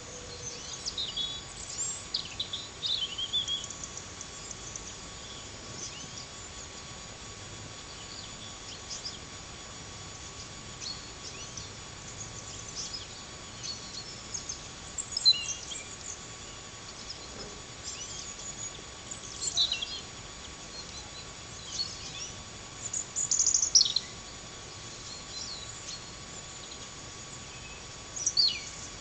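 Small woodland birds calling: short, high chirps and quick falling notes, scattered irregularly, with a few louder calls in the second half, over a steady background hiss.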